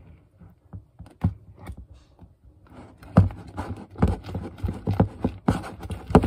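Fluffy slime being stirred in a plastic bowl just after borax activator has been poured in: irregular scraping and knocking strokes against the bowl, sparse at first and busier from about halfway through.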